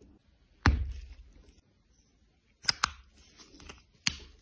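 Sharp clicks from the hard plastic case and cap of a lip gloss tube being handled. There is one click with a low thump about half a second in, a quick double click near three seconds with some soft handling after, and another single click near the end.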